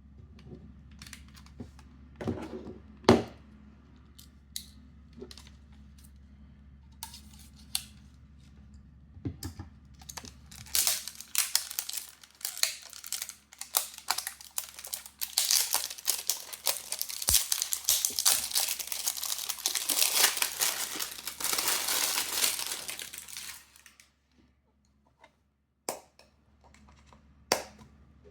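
Packaging being unwrapped by hand: scattered taps and clicks at first, then about twelve seconds of dense crinkling and tearing, then two sharp taps near the end.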